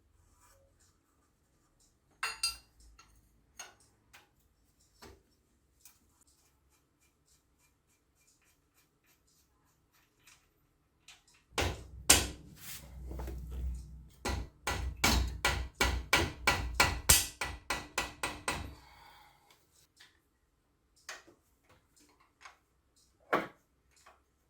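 Workshop tool work on a car engine. There are a few scattered clicks, then about seven seconds of rapid repeated metallic clicks and knocks over a low rumble, and two or three single knocks near the end.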